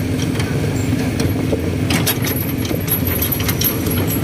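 Engine of a small cargo vehicle running steadily while driving, with the empty metal cargo bed and its hanging chains rattling and clanking over the road.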